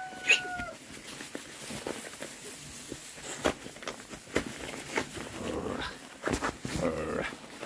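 Oxford Sandy and Black piglets rooting in straw: rustling and snuffling clicks throughout, with a few short grunts near the end. A long, steady held call ends just under a second in.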